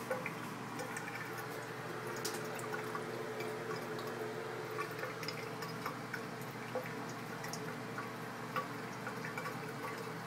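Water trickling from a bathroom sink faucet, with scattered drips and small splashes in the basin.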